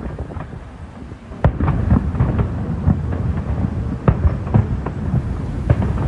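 Fireworks going off: an irregular string of sharp bangs and crackles, the loudest about one and a half and four seconds in, over a low rumble of wind on the microphone.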